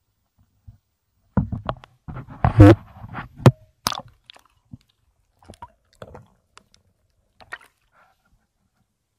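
Scattered knocks, scrapes and small wet splashes of someone moving and handling things on wet rocks at the water's edge. A dense burst of them comes a second or two in, then only a few faint clicks.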